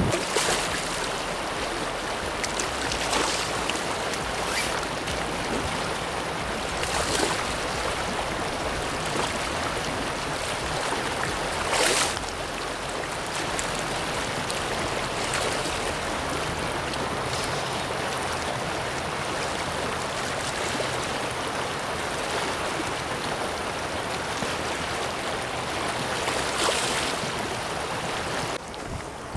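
Shallow river water running over a gravel riffle, a steady rush with a few brief louder moments, the sharpest about twelve seconds in.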